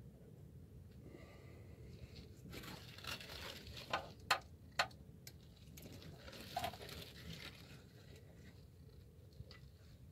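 A socket extension being twirled by hand to back out an oil pan bolt: faint metal scraping and rattling, with three sharp metal clicks about four seconds in.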